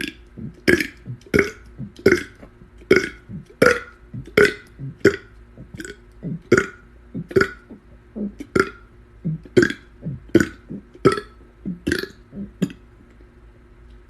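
A man burping the alphabet: a long run of short voiced burps, one after another at about one and a half to two a second, stopping shortly before the end.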